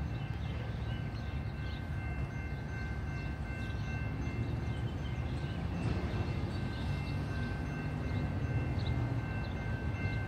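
Diesel locomotive engine running, a low rumble that grows a little louder about four seconds in, with a steady high ringing of several pitches held over it.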